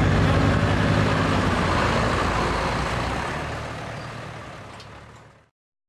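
The diesel engine of a GMC Sierra 2500HD pickup idling steadily, fading out to silence about half a second before the end.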